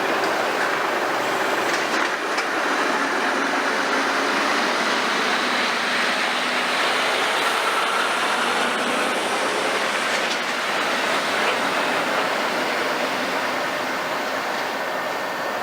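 Heavy construction machinery running: a steady mechanical din with a few faint metallic clicks.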